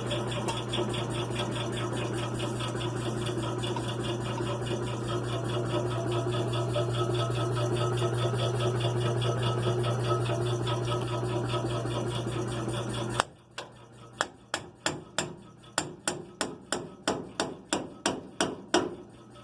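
Shop air compressor running steadily with a low hum, then cutting off suddenly about two-thirds of the way through. A quick series of sharp hammer blows on a steel pickle fork follows, about three a second, driving the fork in to separate the upper ball joint.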